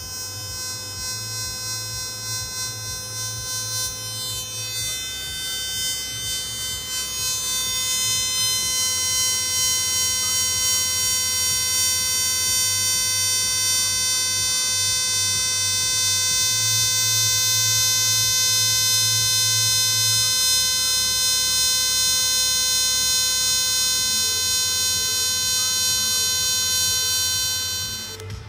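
TIG (argon-shielded) welding arc on stainless steel giving a steady high-pitched buzz that grows louder over the first several seconds, holds, and cuts off near the end as the arc is broken.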